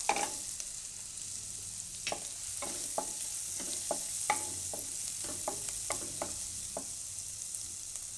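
Chopped garlic and green chillies sizzling in melted butter in a kadai, a steady hiss. A wooden spatula stirring them clicks and scrapes against the pan again and again, easing off near the end.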